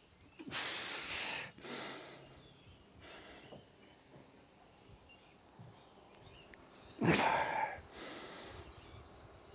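A man breathing out hard twice, about six and a half seconds apart, each time followed by a quieter breath in: heavy breathing from exertion during a workout.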